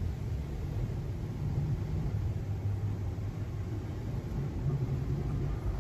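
Tunnel car wash working over the car, heard from inside the cabin: water and foam pouring over the windshield with a steady low rumble.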